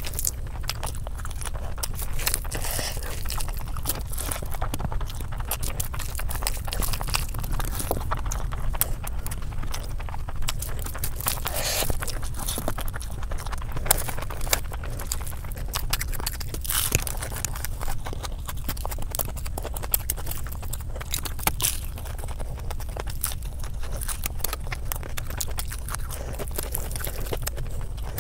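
Close-miked eating sounds: a hand squishing and mixing oily biryani rice, with wet chewing and mouth smacks. Many small sharp clicks run all through, over a steady low hum.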